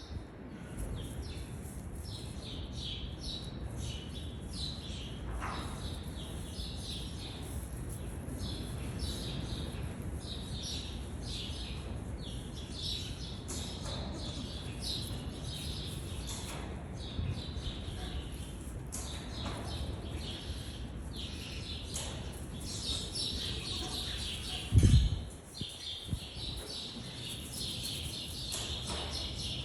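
Small birds chirping over and over, with a steady low background rumble. One loud, short low thump comes near the end.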